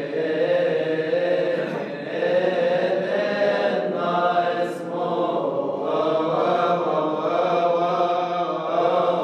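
Chanting voices holding long notes that slide slowly up and down in pitch, with no break.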